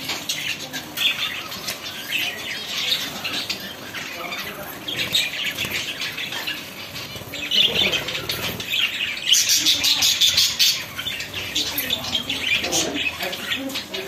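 A flock of budgerigars chattering, chirping and squawking all at once, a continuous busy twitter that grows loudest about nine to eleven seconds in.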